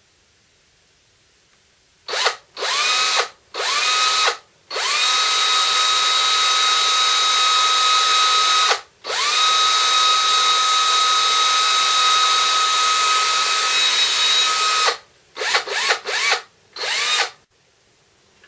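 DeWalt 18-volt XRP cordless drill motor, freshly cleaned armature and gearbox refitted, test-run on the trigger: three short spin-ups, then two long runs at steady speed, then a few quick bursts near the end. Each start is a rising whine that settles to a steady pitch. It seems to be working okay.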